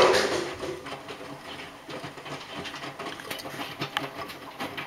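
Compact front-loading washing machine running, its drum turning and the laundry tumbling inside with an irregular patter of small knocks and rattles over a low hum.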